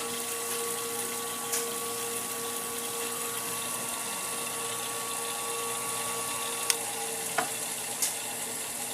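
Wolff Industries Twice As Sharp scissor sharpener's ball-bearing motor running with a steady, quiet hum. A few light clicks come in the second half, and one high tone in the hum stops with the first of them.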